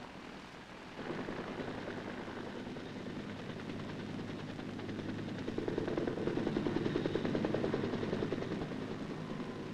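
UH-1 Huey armed helicopter in flight with rapid machine-gun fire. The sound starts suddenly about a second in and grows louder past the middle.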